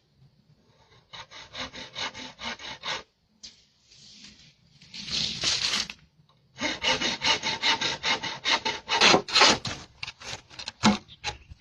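Handsaw cutting through wood in quick back-and-forth strokes, about five a second, in two runs with a rougher rasping stretch between them.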